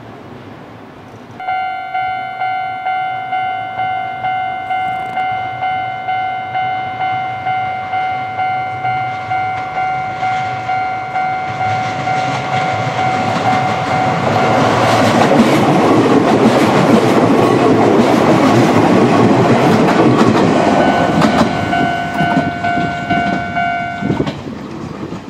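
Japanese level crossing alarm bell starts about a second in and rings about twice a second while an Izuhakone Railway electric train runs over the crossing, loudest around the middle. The bell goes on after the train has passed, dropping slightly in pitch, and stops shortly before the end.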